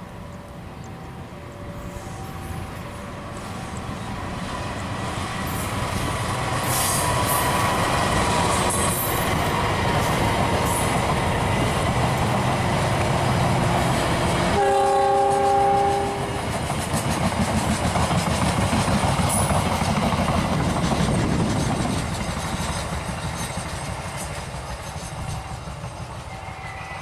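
Diesel-hauled passenger train passing close: a rumble and clatter of wheels over the rail joints that builds up, stays loud while the coaches go by, then fades away. Midway through, a train horn sounds once, a chord of several notes lasting about a second and a half.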